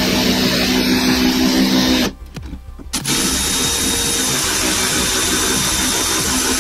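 Power drill running steadily with a motor whine, stopping about two seconds in and starting again about a second later.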